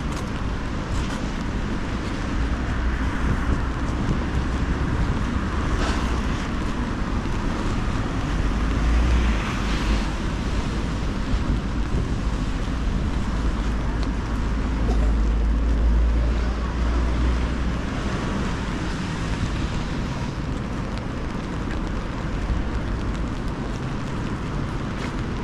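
Rainy city street ambience: road traffic with tyres hissing on wet tarmac, and wind on the microphone adding a low rumble that swells several times.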